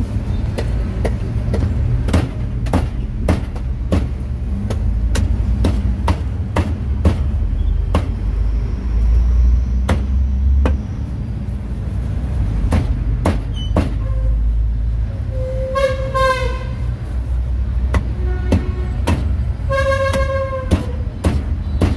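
Road traffic rumbling steadily, with irregular sharp knocks, and a vehicle horn honking twice, each toot about a second long, the second near the end.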